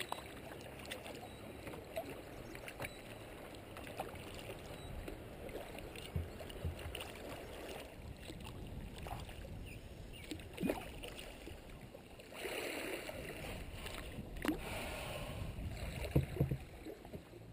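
Kayak paddle strokes splashing and dripping in slow creek water, with water lapping at the plastic hull. It gets louder for the last few seconds as the bow comes into the shallow, sandy edge.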